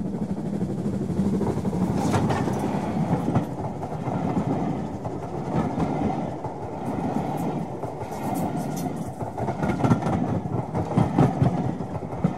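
A train rolling past close by, its wheels clattering with a clickety-clack over the rail joints, with scattered sharp clicks and rattles over a continuous rumble.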